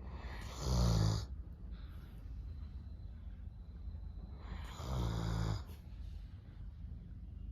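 Doberman snoring: two loud, rasping breaths, each about a second long, about four seconds apart.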